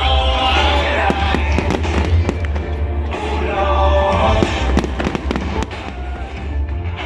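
Fireworks going off in a rapid run of bangs and crackles over loud music with a heavy bass.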